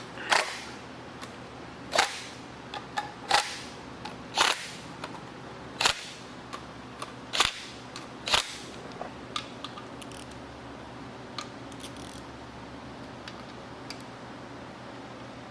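Sharp clicks from hand tools on an engine being assembled: seven loud ones at irregular intervals of a second or so, then fainter scattered ticks over a low steady hum.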